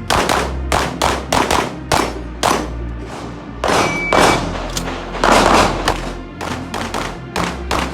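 Handgun shots fired in quick, uneven strings of two or three, over background music.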